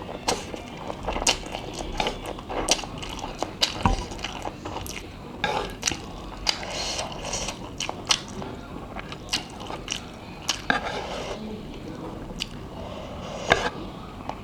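Close-miked eating of spicy instant ramen noodles: chewing and slurping, with many sharp wet clicks and smacks of the mouth.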